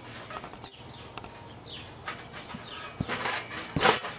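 A child bouncing on a backyard trampoline: a few soft thumps, the strongest two near the end.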